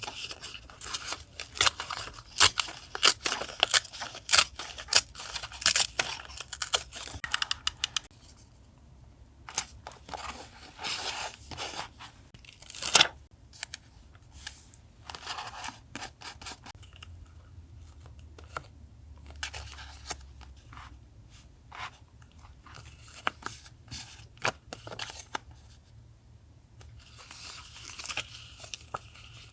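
Close-up paper handling for a collage journal: dense crackly rustling and tearing of paper for the first several seconds, then sparser rustles with one sharp click about thirteen seconds in, and rustling picking up again near the end.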